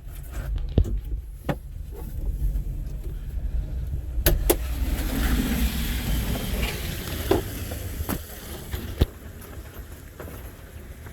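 Valmet tractor's diesel engine idling with a steady low rumble, with several sharp knocks and clicks from handling in the cab.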